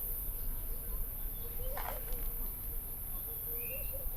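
Outdoor campsite ambience with faint bird calls: one brief call about two seconds in and a short chirp near the end.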